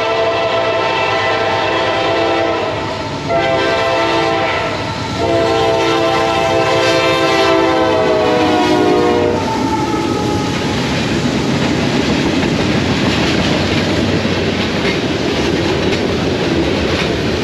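Freight train locomotive air horn sounding a long blast, broken twice early on, its chord dropping in pitch as it passes about nine seconds in. The steady rumble and clatter of the train rolling by follows.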